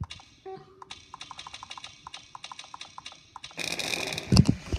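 A quick run of short clicks, about five a second, while paging through a computer game's level-select menu. Near the end comes rustling handling noise with a couple of heavy thumps.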